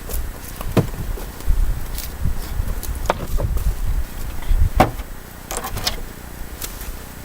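Irregular knocks and cracks of wood being worked by hand, a few single sharp knocks and a quick cluster of cracks about two-thirds of the way through, over a low rumble.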